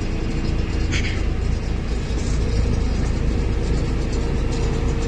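Heavy road-construction machine's engine running with a steady low rumble, with a brief clank about a second in.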